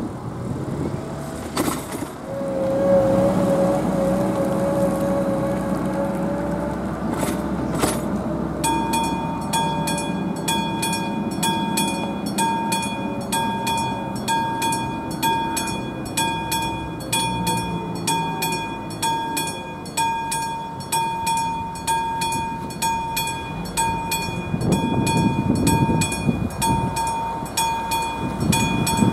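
An AŽD 71 level-crossing warning bell, the classic electric bell type, starts a little under a third of the way in and keeps ringing with rapid, even strokes: the crossing's warning for an approaching train. Before it starts, a car passes over the crossing, and a low rumble builds near the end.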